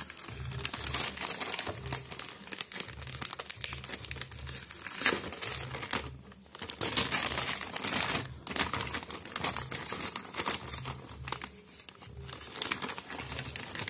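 Plastic anti-static shielding bag crinkling and rustling as it is handled and opened by hand, with a few louder crackles.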